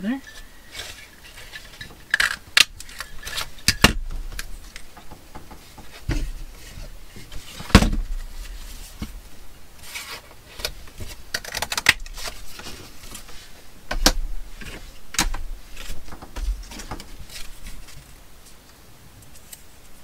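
Handheld craft paper punches clacking as shapes are punched out of paper, with paper rustling and tools knocking on a wooden tabletop. The sharp clicks come irregularly, the loudest about eight seconds in.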